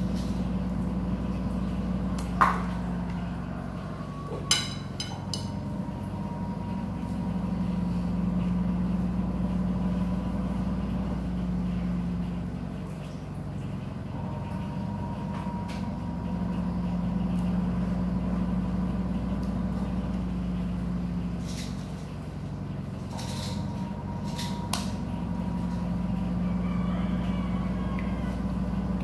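A motor running with a steady low hum that swells and fades every several seconds. There are two light clicks in the first few seconds.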